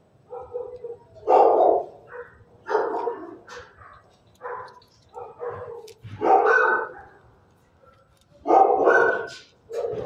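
A dog barking repeatedly in short, separate barks, some single and some in quick pairs, at irregular spacing with a longer pause shortly before the end.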